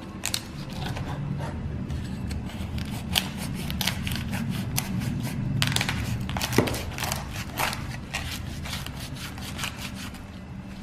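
Crispy skin of a bellychon (rolled roast pork belly) crackling, with irregular sharp crackles and pops over a low rumble.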